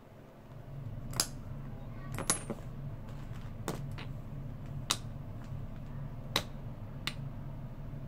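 Small sharp clicks and taps from fingers working the wire connections on a small electromagnetic lock, about six spread across a few seconds, over a steady low hum.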